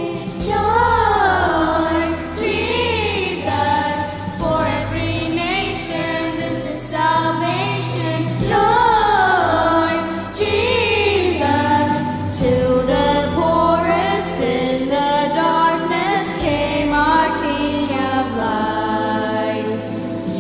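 A church vocal group singing a hymn in harmony, the voices held with vibrato, over low sustained bass notes that change every couple of seconds.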